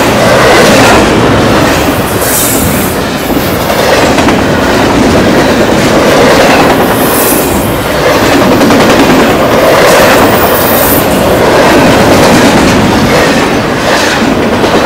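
Double-stack container cars of a freight train rolling past close by: a loud, steady rumble with the clickety-clack of steel wheels over rail joints.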